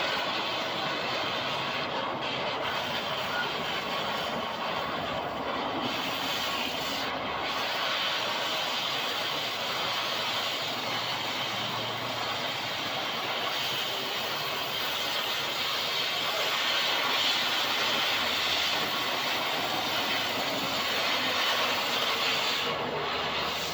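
Steady rushing noise of a vehicle on the move, with no clear engine note or knocks.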